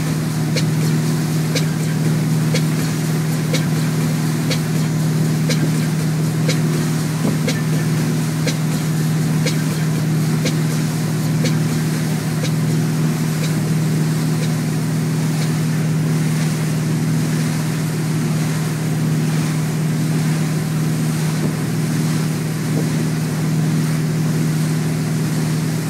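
Malibu wakesurf boat's inboard engine running at a steady low hum under load at surfing speed, over the churning rush of the wake behind the stern. Light ticks come about once a second through the first half.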